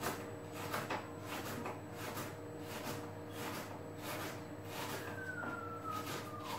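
Knife chopping an onion on a plastic cutting board: even taps about two a second.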